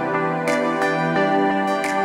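Gentle instrumental background music of sustained chords that change every second or so, with a brief high shimmer twice.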